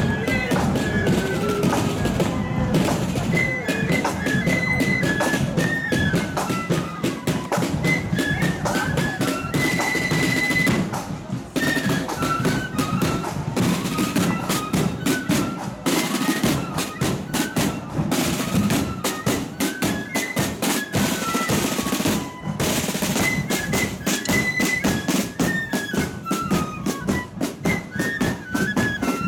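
Marching flute band playing a tune: flutes carry a quick stepping melody over snare drums and a bass drum.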